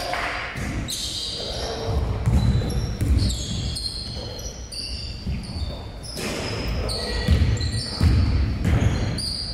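Basketball game on a hardwood court in a large echoing gym: the ball bouncing with repeated thuds, sneakers squeaking in short high chirps, and players' voices calling out now and then.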